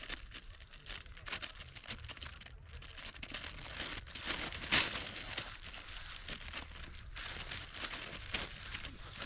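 Close rustling and crinkling with irregular crackles, and one sharper, louder crackle about five seconds in.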